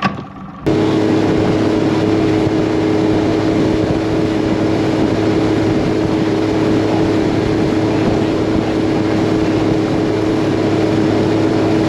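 Bass boat's 150 hp outboard motor running steadily at cruising speed, with wind and water rushing past. The sound starts abruptly just under a second in and holds at a constant pitch.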